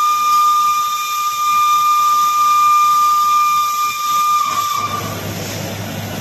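Steam whistle of the EIR 21 replica steam locomotive giving one long, steady, high blast over a hiss, cutting off about five seconds in; a low hum and hiss go on after it.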